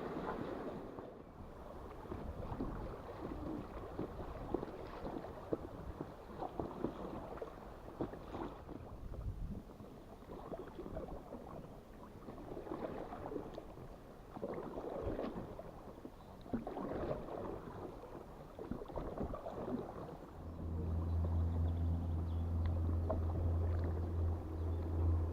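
River water splashing and gurgling around an inflatable canoe as it moves downstream, in irregular bursts. About 20 seconds in, a steady low hum starts and becomes the loudest sound.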